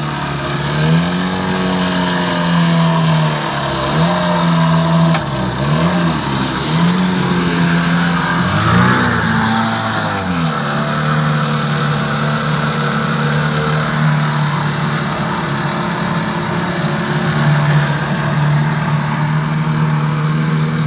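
Mercury 7.5 hp two-stroke outboard motor running in a test barrel, its propeller churning the water. Its revs dip and pick up again several times over the first ten seconds or so, then it runs at a steady speed.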